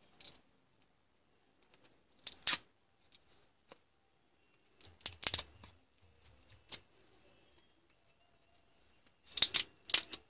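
Several short bursts of crackling and clicking as a cordless drill battery pack is pulled apart by hand: paper insulation torn from the cells, and the cells and their metal tabs handled. The loudest burst comes near the end.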